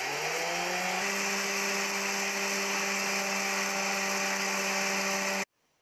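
Electric stand mixer switched on at low speed, stirring whipped egg-and-sugar sponge batter. Its motor hum rises in pitch over the first second as it spins up, then runs steadily, and cuts off suddenly near the end.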